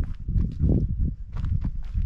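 Footsteps of a hiker walking along a trail: a run of uneven steps, several a second, over a low rumble.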